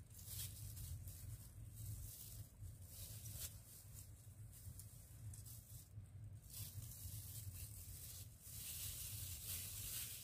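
Clear plastic bag crinkling and rustling as it is handled, in uneven bursts, loudest near the end. A faint steady low hum runs underneath.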